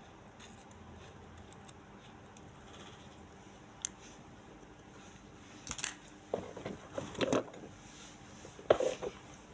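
A sharp click about four seconds in, then short bursts of knocking and rattling around six to seven seconds and again near the end, the last one loudest, over low background noise.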